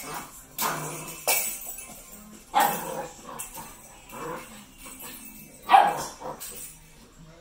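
Small jingle bells jingling and clattering in bursts as a puppy paws and mouths them on the floor, the loudest burst about three-quarters of the way through, mixed with short puppy barks.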